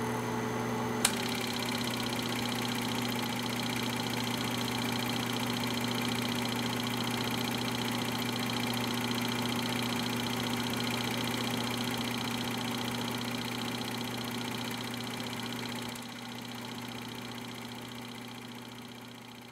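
Normal-8 film projector running: a steady motor hum and mechanical whir with a single click about a second in, fading out near the end.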